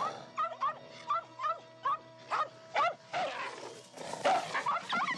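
A dog barking in a quick series of short, sharp yaps, about eight in the first three seconds and a denser flurry near the end, over background music.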